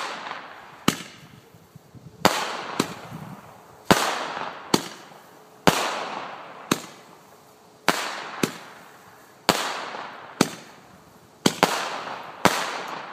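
A Cutting Edge Flashing Thunder ten-ball report roman candle firing: a string of sharp, loud bangs about one a second, the bigger ones trailing off in a fading echo.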